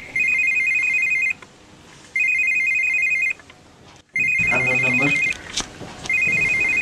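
Mobile phone ringing with an electronic trilling ringtone, like an old phone bell. It gives four rings, each about a second long, starting every two seconds.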